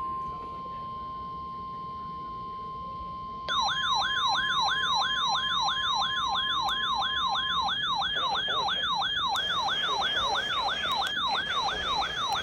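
Emergency alert tones: a steady single-pitch alert tone, like the weather-radio alert tone. About three and a half seconds in, a loud electronic siren joins it, rapidly warbling up and down about three times a second. The steady tone cuts out midway and the warbling siren carries on.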